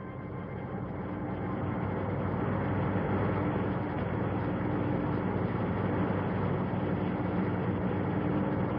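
A steady, rushing rumble with a faint held low tone underneath, swelling gradually over the first few seconds and then holding level.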